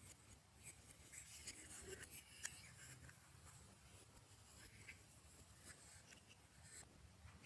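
Faint, scattered rustling with small clicks and sticky pops as slime is handled and mixed.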